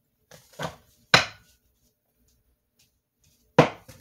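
Sharp knocks on a tabletop as a tarot deck is handled: two about a second in, the second the loudest, and another near the end.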